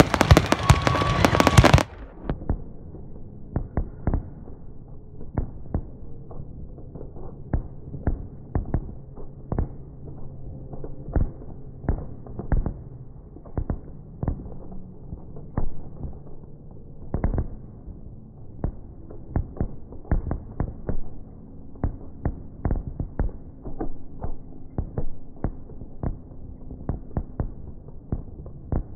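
Fireworks going off in a dense barrage of bangs and crackles. About two seconds in, the audio switches to slow-motion playback, and the bangs become deep, dull thuds that come irregularly, several a second.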